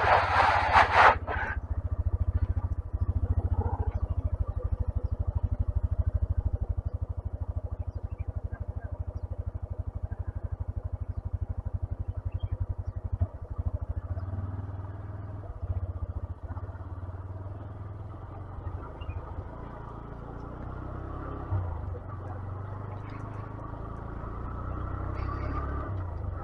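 125cc single-cylinder motorcycle engine running with an even, rapid beat. It turns weaker and less regular about halfway through. A brief loud noise comes at the very start.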